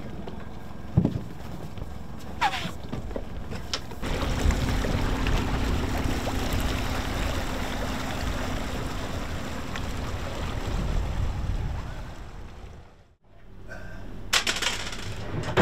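A tender's 60 hp outboard motor running as the inflatable boat pulls away, with water churning behind it; the engine starts about four seconds in and fades out near the end.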